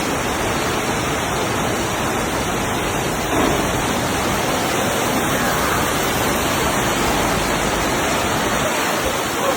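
Torrential rain pouring down in a steady, dense rush of water.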